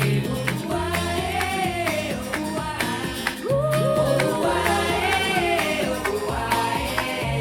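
Pop song with a sung vocal line over a steady beat and sustained bass notes, played back through Audioengine powered desktop speakers for a sound and bass comparison.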